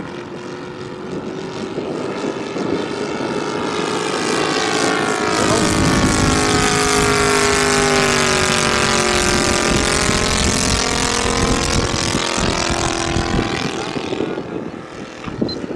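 Kolm 155 engine and propeller of a large radio-controlled model Spitfire in a fly-past. The note builds up, is loudest in the middle, drops a little in pitch as the plane passes, and fades away near the end.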